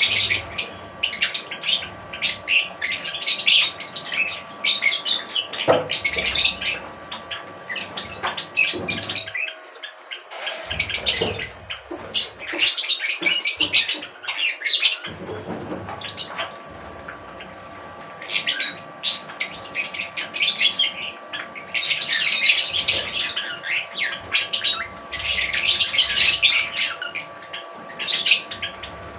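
Many small birds chirping and chattering in a dense, rapid twitter that comes in bouts with quieter spells between. A faint steady hum runs underneath.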